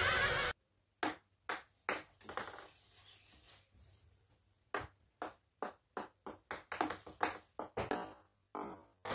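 Ping pong balls bouncing on a granite countertop with sharp ticks. There are two runs of bounces: a few about half a second apart, then a longer run that speeds up as the ball settles. A brief stretch of background music ends just after the start.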